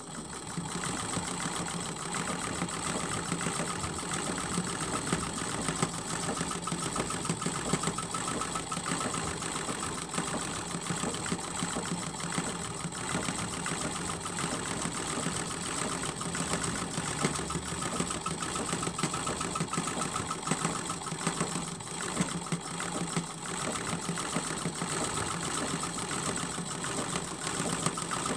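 Sewing machine starting suddenly and running steadily at speed, stitching through a quilt.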